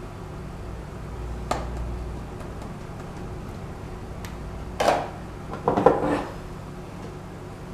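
Plastic kitchenware knocking: a plastic container tipped and tapped against a plastic mixing bowl while an ingredient is emptied in. There is a faint knock about a second and a half in, a sharper one near five seconds and a short run of clatters just after.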